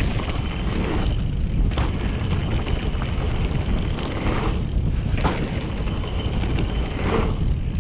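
Mountain bike riding through dirt jumps: steady wind noise on the microphone and knobby tyres rolling on dirt, with a few sharp knocks from the bike.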